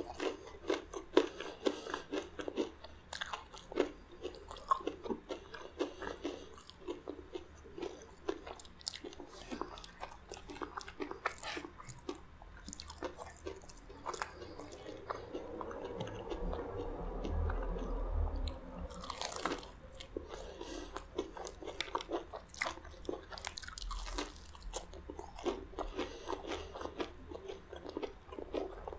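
Close-miked biting and chewing of crispy fried chicken, the coating crunching in quick sharp crackles. For a few seconds past the middle the crunching gives way to softer, duller mouth noise before it picks up again.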